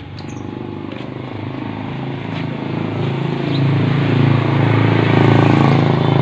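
Small motorcycle engine running steadily and getting louder over several seconds as it approaches, loudest near the end.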